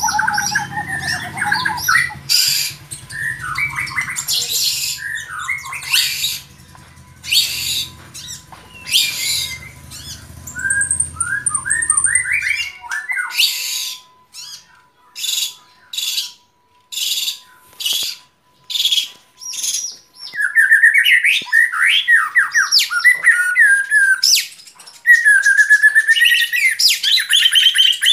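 White-rumped shama (murai batu) singing: harsh rasping notes mixed with whistled and trilled phrases. Around the middle the rasping notes come about once a second, and louder whistled phrases follow near the end.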